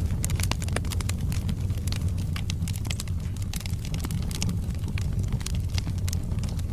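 Wood fire burning in a fireplace: a steady low rumble of the flames with many sharp crackles and pops from the burning logs.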